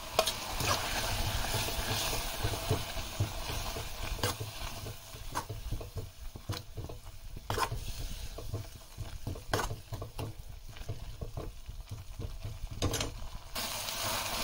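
A wooden spatula stirring a thick onion-tomato-cashew gravy into cooked spinach and fenugreek in a kadai, with irregular scrapes and knocks against the pan. A light sizzle runs underneath and eases after the first few seconds.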